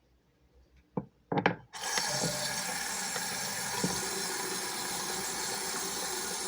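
A couple of sharp clicks, then a tap is turned on and water runs steadily into a sink.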